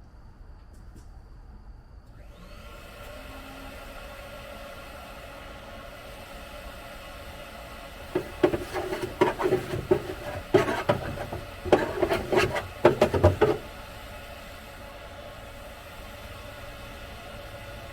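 Humvee engine running at a steady drone that sets in about two seconds in, with a run of loud knocks and rattles for about five seconds in the middle.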